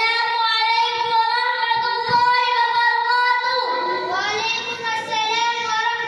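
A child singing in a high voice, holding long notes that waver slightly.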